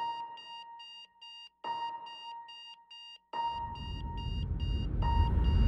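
Rapid electronic beeping, about four short high beeps a second, with a lower tone that starts again roughly every second and a half. About halfway through, a rising whoosh swells in underneath and grows louder.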